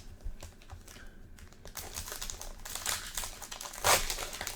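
A trading card pack's wrapper being torn open and crinkled by hand: a run of small crackles, with a louder rustle near the end.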